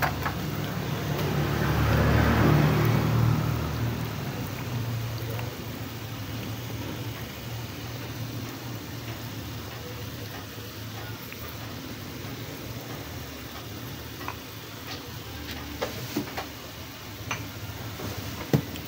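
A pan of jackfruit in coconut milk simmering on the stove, over a steady low hum that swells louder in the first few seconds; a few small pops and clicks come near the end.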